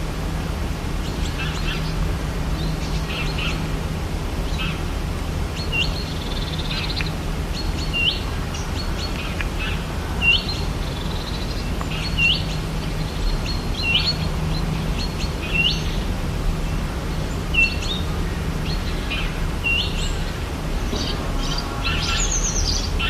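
Rainforest ambience: a bird repeats a short hooked call about every two seconds, among other scattered high chirps, over a steady low rumble.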